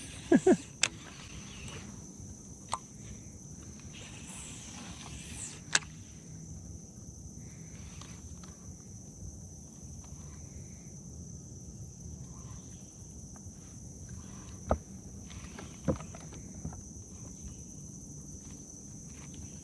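Steady high-pitched drone of insects, with a few sharp clicks scattered through, the loudest pair about half a second in.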